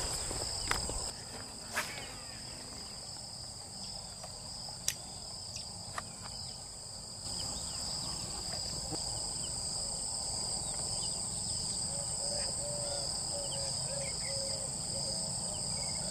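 Steady high-pitched insect chorus, with a few sharp clicks in the first six seconds.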